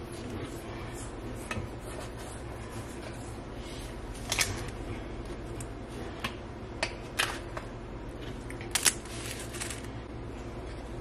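Blueberry muffins in foil liners being set down one by one on a wooden serving board: a few light crinkles and sharp taps, most of them in the middle, over a steady low hum.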